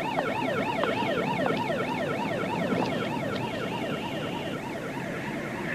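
Emergency vehicle sirens yelping, their pitch sweeping quickly up and down about three times a second, with two sirens overlapping out of step. They fade near the end.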